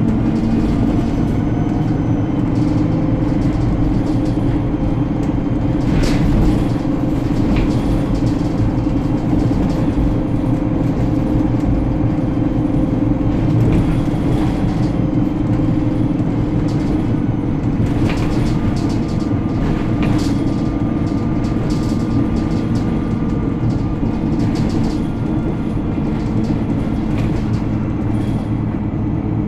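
Alexander Dennis Enviro 300 single-decker bus on the move, its engine giving a steady drone, with occasional sharp knocks and rattles, several of them close together about 6 to 8 s in and again about 18 to 20 s in.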